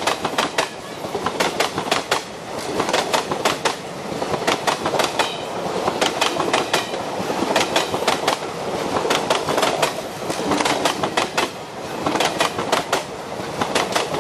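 Indian Railways passenger coaches passing at speed: wheels clatter over the rail joints in quick repeated groups over a steady rush of wheels on track.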